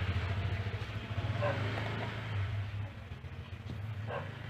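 A motor vehicle's engine hum that fades as it moves away.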